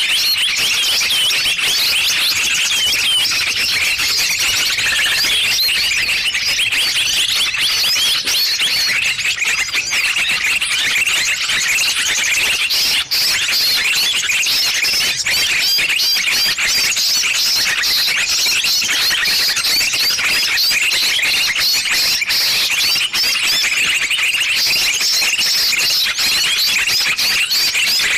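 Dense, unbroken chorus of many small birds chirping at once, high-pitched and with no pauses: a lure call (suara pikat) played to draw small birds in for trapping.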